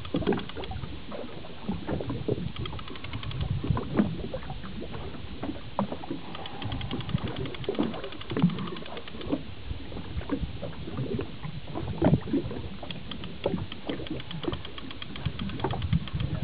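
Water slapping against the hull of a boat at sea, with irregular knocks and thumps over a steady low rumble.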